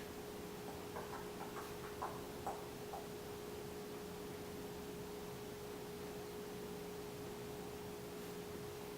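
A steady, faint electrical hum, with a few light clicks in the first three seconds.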